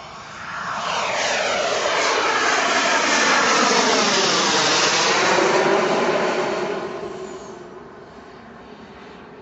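Turbine-powered RC model F-22 Raptor jet making a pass. The turbine's rush builds about half a second in, stays loud for several seconds as the jet goes by, then fades away toward the end.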